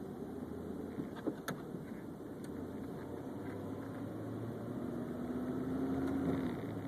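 A car running and driving, its engine and road noise steady, with two light clicks about a second and a half in. A steady hum rises about five seconds in and cuts off near the end.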